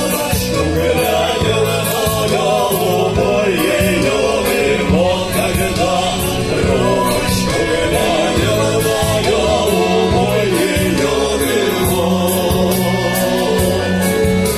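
Music: a song sung by several voices together over an instrumental backing with a repeating bass line.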